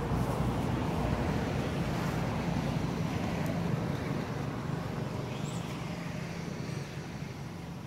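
Steady low rumble and hiss of outdoor background noise, easing off slightly toward the end.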